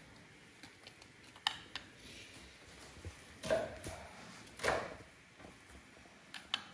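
Chef's knife cutting onion on a wooden chopping board: a few faint, irregularly spaced knocks of the blade through the onion onto the board.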